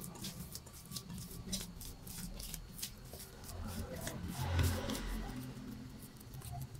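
Hands pressing and turning a ball of oiled, yeast-raised bread dough in a glass bowl: a run of light, sticky clicks and soft rubbing as the dough is worked.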